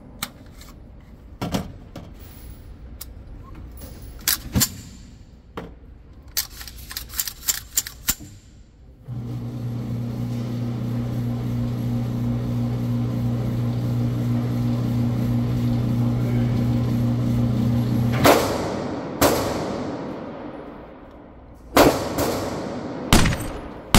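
Sharp metallic clicks and clacks of an AR-15 rifle being handled. About nine seconds in, a steady low hum starts and runs for about nine seconds. It is followed by a few loud, echoing bangs.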